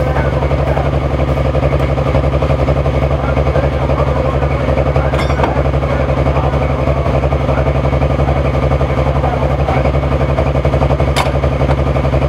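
Pro stock diesel pulling truck idling steadily after its pull, with an even, unchanging engine note and no revving.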